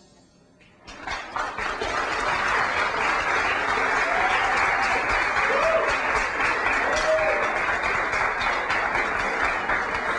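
Theatre audience applauding, starting about a second in after a brief hush, with a few shouts from the crowd near the middle.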